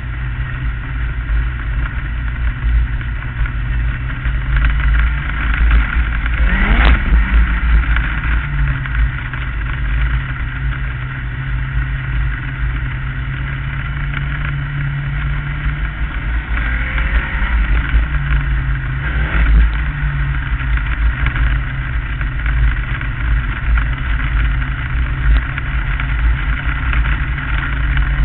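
Onboard sound of a Lightning Sprint race car's engine running at low, steady speed. Its note dips and climbs briefly about seven seconds in, and again between about seventeen and nineteen seconds.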